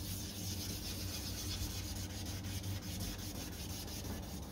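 800-grit wet-and-dry sandpaper on a hand sanding block rubbing over a wet plastic headlight lens in quick back-and-forth strokes, a steady scratchy hiss. This grit stage takes out the scratches left by the 400-grit paper.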